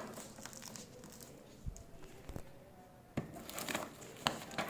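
Scattered handling sounds from a printer and its plastic packaging being unpacked: light clicks, knocks and crinkling, with one dull thump a little under two seconds in.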